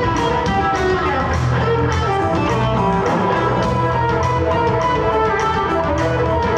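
Live electric blues band playing an instrumental passage: electric guitar lines over bass guitar and drums, with cymbal hits keeping a steady beat about twice a second.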